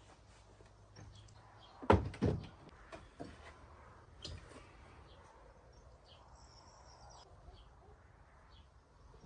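Two sharp knocks in quick succession, with a few lighter clicks after, like a wooden door or cupboard being handled. A bird chirps briefly later over a low steady hum.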